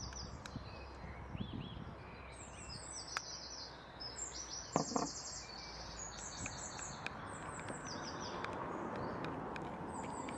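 Small songbirds chirping in quick repeated series over a steady outdoor background hum, with a few light ticks of a metal spoon against a ceramic bowl as honey is stirred.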